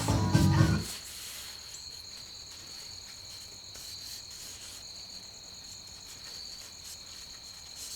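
Background music that cuts off about a second in, leaving a steady, faint high-pitched trill of crickets.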